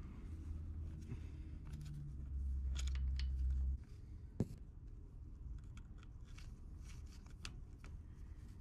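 Small metallic clicks and scrapes of a bolt being threaded by hand into the fuel shutoff solenoid on a Caterpillar 3306 mechanical fuel pump, with one sharper click a little after four seconds. A low hum runs underneath, grows louder, and cuts off suddenly about four seconds in.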